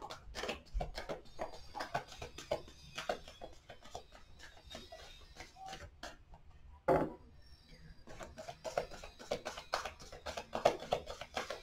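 A deck of tarot cards being shuffled by hand, overhand, with quick crisp flicks and slaps of card packets. The flicks come thick in the first few seconds and again toward the end, with a single louder shuffle about seven seconds in.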